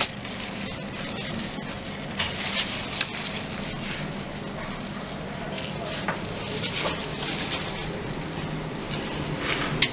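Steady crackling sizzle from a hot sandwich grill, with a few light clicks and taps from food being handled.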